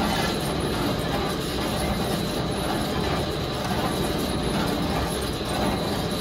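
TAB Wrapper Tornado 40-inch orbital box wrapper running: a steady mechanical rumble from its rotating wrap ring and conveyor rollers as it winds stretch film around a passing load, with a thin high steady whine.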